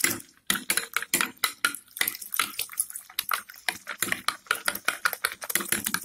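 A metal spoon stirring liquid detergent into water in a drinking glass, clinking rapidly and repeatedly against the glass.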